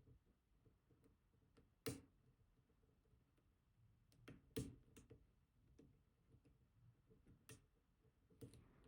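Faint, scattered clicks and light scraping of a steep hook pick working the pin tumblers inside an ASSA Twin Combi lock, with the sharpest clicks about two seconds in and again about four and a half seconds in.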